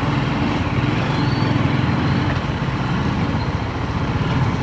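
TVS Apache RTR 310's single-cylinder engine running steadily at low revs while the bike crawls along at walking pace.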